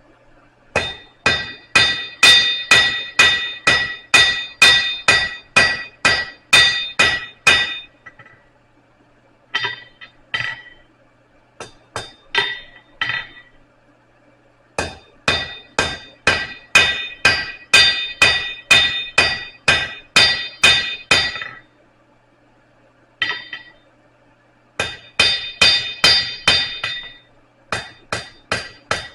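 Blacksmith's hammer striking hot steel on an anvil, forging a hook. Runs of about three blows a second, each with a bright metallic ring, are broken by short pauses.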